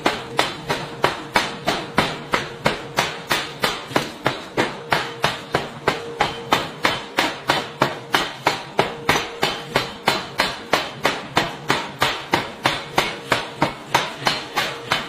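Pneumatic forging hammer pounding red-hot steel in a ring die, flattening the blank. It strikes in a rapid, even train of sharp blows, about three a second, over a faint steady hum.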